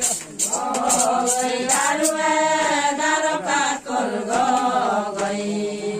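Ponung song chanted by a group of voices in unison, led by the miri. The metal jingles on the miri's sword rattle as he shakes it, mostly near the start.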